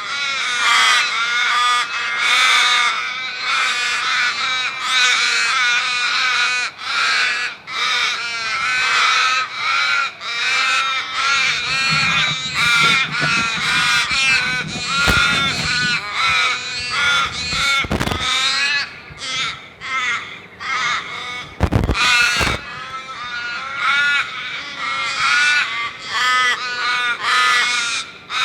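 A flock of crows cawing, many harsh calls overlapping without a break. A few sharp knocks cut in about two-thirds of the way through.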